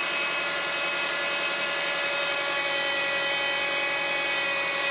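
Power steering pump on a cold-started Subaru giving a shrill, grinding whine, steady and unchanging, over the engine. The noise is caused by cavitation of the oil in the power steering system.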